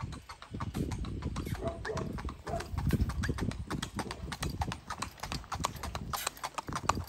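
A horse's hooves clip-clopping on a paved road in a steady rhythm as it pulls a two-wheeled cart.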